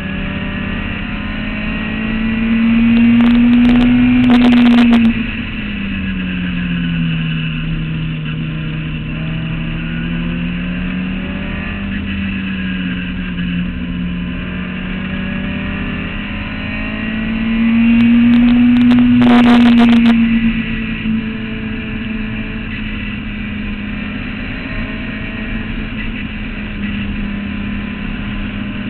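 Clubman racing car's engine heard from inside its open cockpit at speed, its pitch climbing and sinking as the revs change. It has two louder, higher-revving spells, about two seconds in and again near eighteen seconds, and each falls away abruptly.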